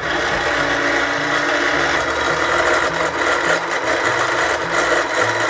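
Sewing machine motor running steadily to wind a bobbin with thread, a continuous whir that cuts off suddenly just after the end.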